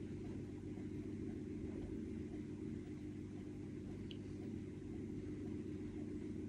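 Extractor fan running with a steady low hum.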